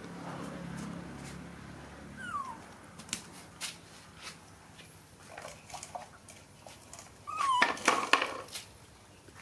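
A young animal gives short, falling squeaks, with scattered light taps and clicks between them. The loudest moment is near the end: a squeak followed by a quick run of sharp rattling knocks. A low hum fades out over the first two seconds.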